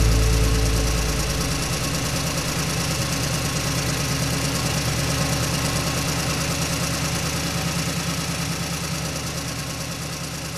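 Backhoe loader engine running with a rapid, even chug, slowly fading.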